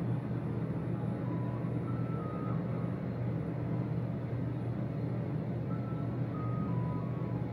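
Hyundai passenger elevator car travelling downward, a steady low hum and rumble heard from inside the car. A faint group of three short tones, stepping down in pitch, sounds twice, about a second in and again about six seconds in.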